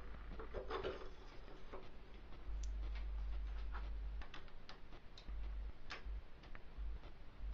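Irregular light clicks and ticks from a repaired BMW R26 throttle twist grip and its small metal parts being worked by hand, roughly one or two clicks a second, over a low steady hum.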